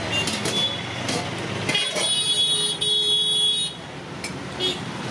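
Busy street traffic noise with a vehicle horn sounding steadily for about two seconds midway, and a few sharp clinks of steel ladles on steel plates and pots.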